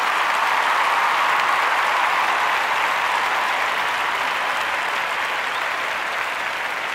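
Audience applauding, a dense steady clapping that slowly fades.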